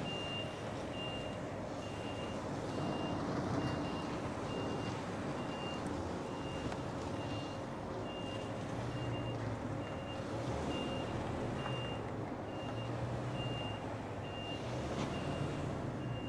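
Reversing alarm beeping steadily, a little faster than once a second, over the low running of a lorry's diesel engine heard from inside the cab.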